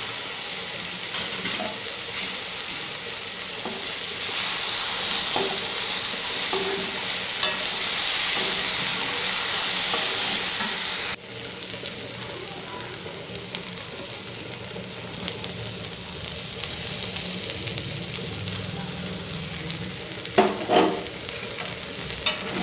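Raw banana slices sizzling as they fry in oil in a pan while being stirred. The sizzle drops abruptly to a lower level about halfway through, and two loud knocks come near the end.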